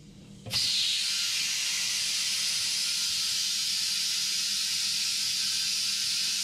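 Compressed air hissing steadily as it is blown into a Polaris tire to seat the tire's bead on the rim; the hiss starts suddenly about half a second in.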